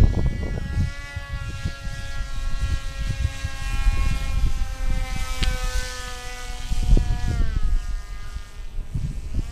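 Electric RC plane's motor and propeller whining overhead, holding a steady pitch, then dropping in pitch about seven seconds in. Wind buffets the microphone throughout.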